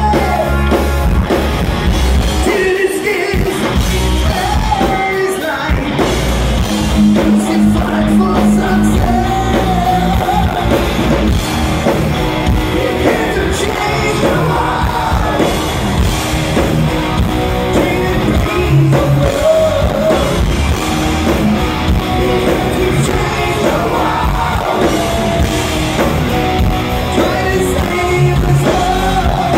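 Live rock band playing: a man singing over electric guitars and drums.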